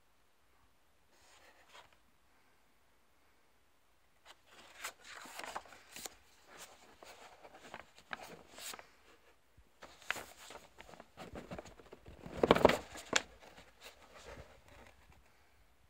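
Paper and cardboard rustling and scraping as a printed leaflet and a gift box are handled, in irregular scrapes starting about four seconds in, loudest a little past two-thirds through.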